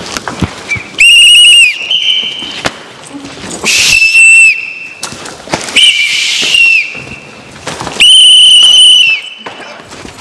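A pea whistle blown in four loud, trilling blasts, each under about a second and a half long, with short knocks and scuffling between them.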